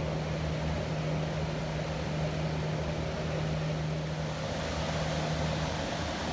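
Steady rush of water pouring over the dam, with a low steady hum underneath that drops out briefly near the end.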